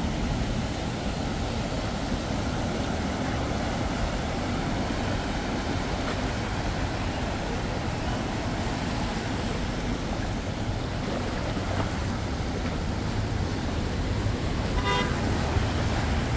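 Steady road traffic noise with a low rumble, and one short vehicle horn toot near the end.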